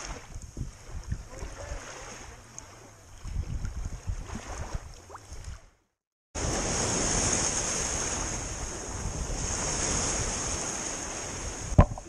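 Wind buffeting the microphone over lake water lapping and splashing around a wading angler, with small knocks in the first half. The sound cuts out for a moment just before the middle, then comes back as steadier, louder wind and surf noise with a single sharp knock near the end.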